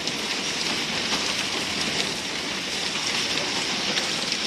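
Heavy rain and hail falling steadily on wet ground, a dense, even hiss with faint scattered ticks.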